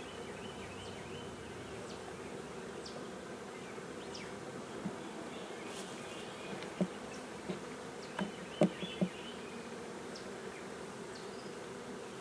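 Honeybee swarm buzzing steadily in a close, even hum. A few sharp knocks come about seven seconds in and again around nine seconds in.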